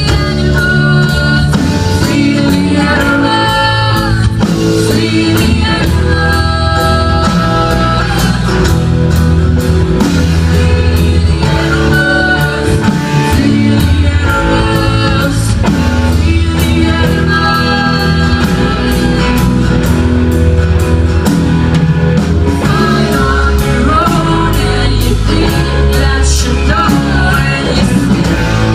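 Rock band playing live and loud in a stretch of the song without lyrics, with electric guitar over a steady drum beat.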